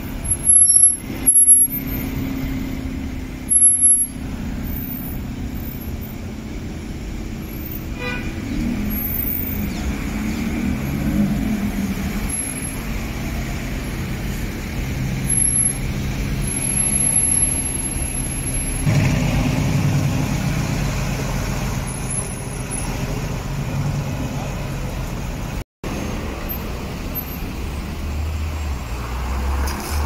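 Aston Martin DB11 engine running as the car moves in slow city traffic, with other traffic rumbling around it. A few loud thumps come in the first four seconds, and a stronger engine note comes in about two-thirds of the way through as the car pulls away.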